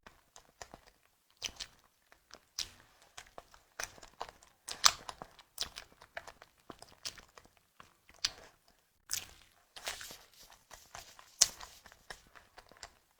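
Close-miked eating sounds: a person biting and chewing a tiger skin dessert. The sound is a string of irregular sharp mouth clicks and smacks, with the loudest strokes near the middle and toward the end.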